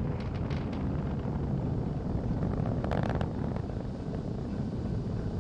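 Falcon 9 rocket's first stage climbing away, heard as a low, steady rumble with scattered short crackles.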